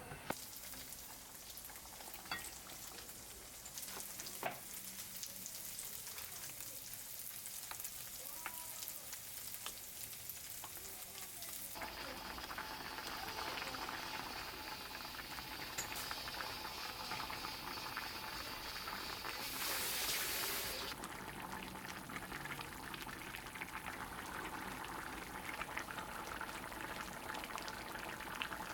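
Food sizzling and crackling as it fries in a hot pan, getting louder about twelve seconds in, with a brief louder hiss around twenty seconds.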